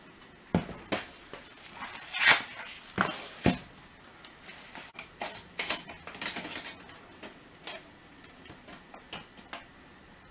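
Sharp metallic clicks and clanks from handling a thin aluminium recessed-light housing and metal tools on a tabletop. Several loud knocks come in the first few seconds, then lighter, scattered rattling.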